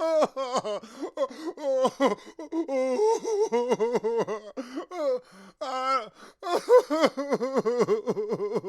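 A man sobbing hard: a quick run of short, broken, pitched sobs, about three or four a second, with gasping breaths between them.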